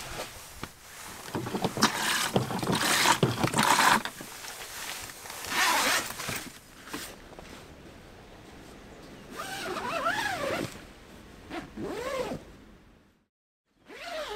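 Zipper on a fabric privacy tent being run in long rasping pulls, with fabric rustling.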